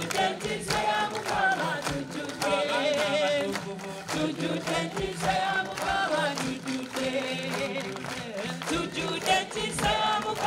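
A choir and gathered people singing a song together, with hands clapping along in a steady rhythm.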